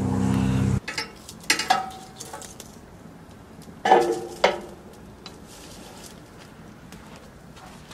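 Sharp metal clanks and clinks with a short ring, a couple about a second and a half in and a louder pair about four seconds in: metal tongs and a steel pan knocking against the steel grate and firebox of an offset stick-burner smoker.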